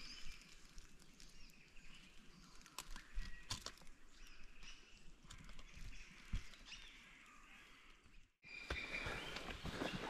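Faint outdoor bush ambience: birds calling here and there, with scattered sharp clicks and knocks. The sound drops out briefly about eight seconds in and comes back a little louder.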